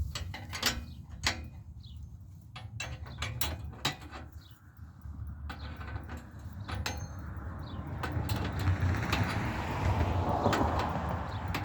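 A nut being tightened down on a bolt with hand tools: a run of irregular sharp metal clicks, then a louder stretch of scraping and rattling near the end.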